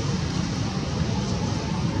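Steady low rumbling background noise at an even level, with no distinct events.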